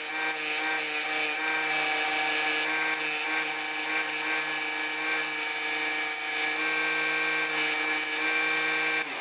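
A DC 24V mini lathe's small motor running at steady speed with a whine, while sandpaper is held against the spinning wooden workpiece and rubs on it. The motor begins to spin down at the very end.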